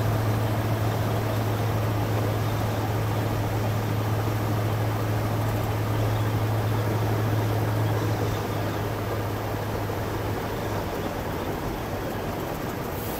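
Cab noise of a 1968 International Harvester 1100D pickup driving along the road: its 345 cubic-inch V8 running steadily with a low drone, under a broad rush of road and tyre noise. The sound eases a little about eight seconds in.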